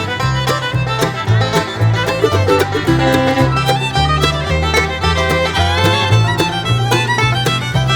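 Upbeat bluegrass-style background music with fiddle, a plucked string rhythm and a walking bass.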